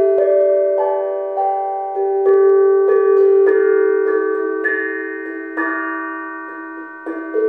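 Small steel drum held on the lap and struck with a pair of mallets, played as a slow melody: each note rings on and overlaps the next. The ringing dies away for a moment near the end before new strikes come in.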